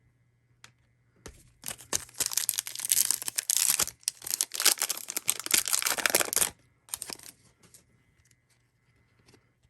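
Foil trading-card pack wrapper crinkling and tearing in two long rustling stretches, with a short crinkle after and a few light clicks of cards being handled near the end.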